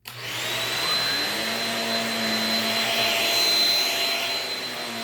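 Shark Rocket corded stick vacuum switching on and running steadily on carpet. Its motor spins up in the first moments, then holds a steady high whine.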